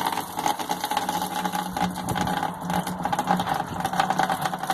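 Small pump humming steadily while cooled wort pours from a copper pipe and splashes into a plastic fermenter bucket, filling the fermenter.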